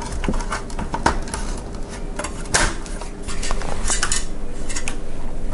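Irregular light clicks, taps and rattles of hands handling a Silverstone SG13 mini-ITX PC case, its front panel and front-panel cables.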